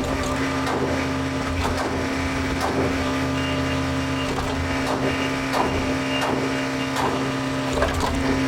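John Deere 410 backhoe's diesel engine running steadily under work, with scattered light clicks and knocks over the drone.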